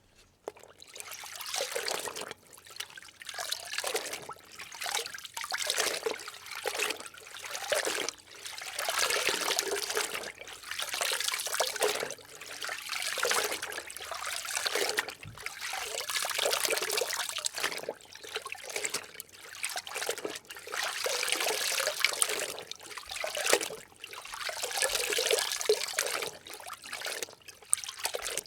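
Something being soaked in water: water sloshing and trickling in uneven surges about every two seconds.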